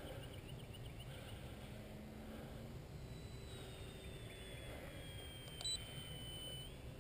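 Faint high whine of the RC plane's electric motor, falling slowly in pitch as the plane is throttled back, over a steady low rumble. Near the end, one short sharp beep, the loudest sound: a radio transmitter's trim button being pressed.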